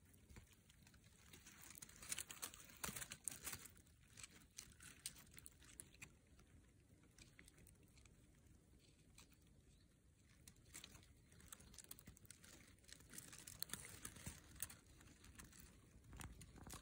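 Faint, irregular crackling and rustling of dry leaf litter as a bumblebee crawls through it, busiest a couple of seconds in and again near the end; no wingbeat buzz.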